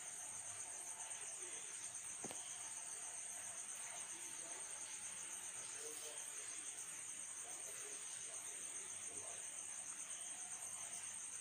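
Steady, high-pitched insect trill, like a cricket chorus, with a faint hiss beneath it.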